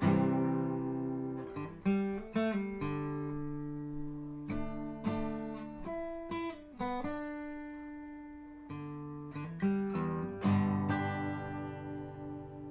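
Acoustic guitar music: plucked notes and strummed chords, each ringing out and fading before the next.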